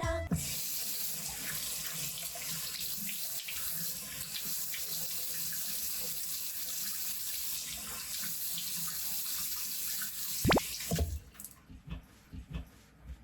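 Bathroom sink tap running, a steady rush of water that stops about eleven seconds in. Just before it stops there is a very short, loud rising whistle. After the water stops, a few light knocks and splashes are heard.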